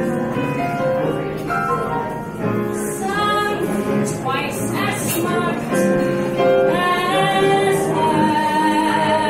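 A woman singing live with keyboard accompaniment, moving through a melodic phrase and settling into a long held note with vibrato near the end.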